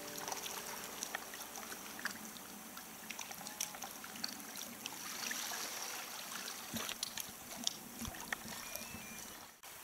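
Calm seawater lapping and trickling against a sea kayak's hull, with many small splashes and clicks and a few soft knocks.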